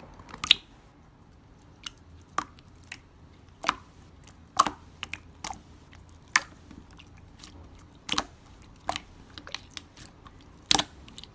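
Irregular sharp clicks and taps, roughly one or two a second, with the loudest about half a second in and near the middle.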